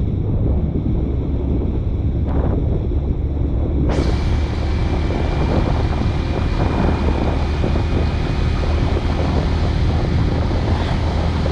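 Steady low rumble of wind buffeting the microphone over the noise of a moving vehicle on a paved road. About four seconds in, the sound turns abruptly brighter and hissier.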